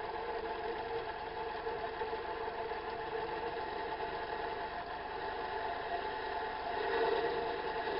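Metal lathe running steadily while turning a 12L14 leaded steel bar down to size, growing a little louder about seven seconds in.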